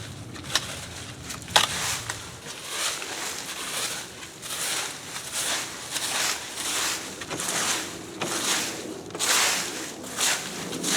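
Repeated rustling swishes of leaves and foliage being worked by hand tools, about one every half second to second, with a couple of sharp clicks in the first two seconds.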